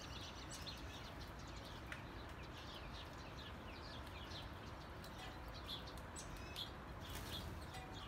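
Faint chirping of small birds, many short quick chirps over a low, steady background noise.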